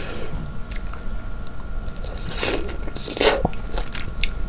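Someone biting into and chewing fresh blackberries, with wet mouth sounds and small clicks. There are two louder chewing spells about two and a half and three seconds in, over a low steady hum.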